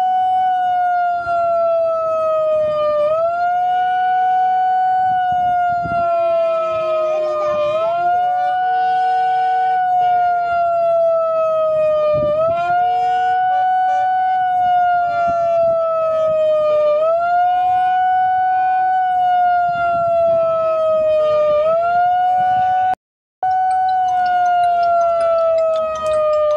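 Siren sounded for a minute of silence: a single wailing tone that jumps up quickly, then glides slowly down, repeating about every four and a half seconds. It cuts out briefly once, near the end.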